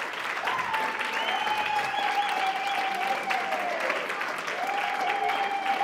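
A crowd of guests applauding steadily, with long, gliding held notes sounding over the clapping.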